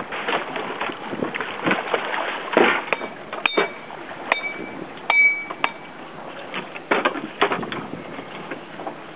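Irregular knocks and thumps on a boat deck, with a handful of short, ringing metallic clinks in the middle, over steady wind and boat noise.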